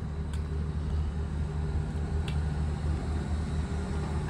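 City transit bus idling at the curb: a steady low engine hum, with a couple of faint clicks.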